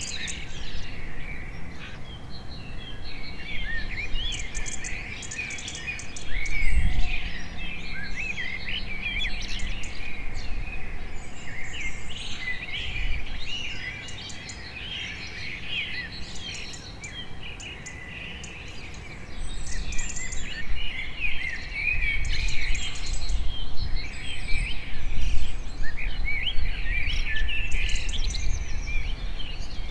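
A dense chorus of small birds chirping and warbling over a low rumble. The calls thin out for a few seconds past the middle, and there is one brief low thump about a quarter of the way through.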